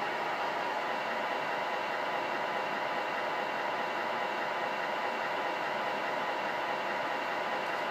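Simulated diesel engine idling from the sound unit of a Tamiya 1/14 Scania R620 radio-controlled truck, a steady, even idle loop played through the model's speaker.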